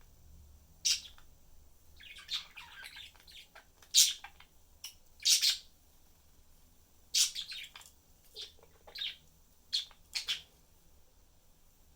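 Budgerigars chirping in short, sharp, separate calls, with a brief patch of busier chatter about two seconds in.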